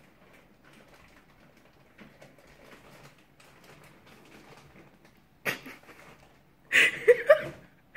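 A plastic bag of chew treats rustling and crinkling as a cat tugs at it, with faint scrabbling throughout. There is a sharp crinkle about five and a half seconds in and a louder burst of crackling near the end.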